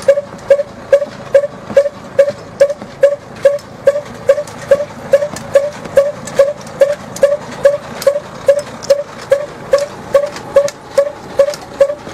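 A chaff cutter (fodder-cutting machine) running with a regular squeaking clank, about two and a half strokes a second, each stroke a short ringing squeal with a click.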